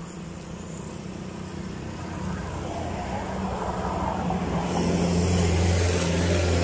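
Road traffic on a highway: a vehicle's engine drone and tyre hiss grow louder as it approaches, loudest near the end.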